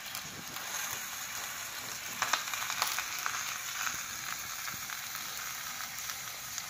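Fish curry in thick coconut milk boiling in a clay pot, a steady sizzling hiss with scattered small crackles and a few sharper pops.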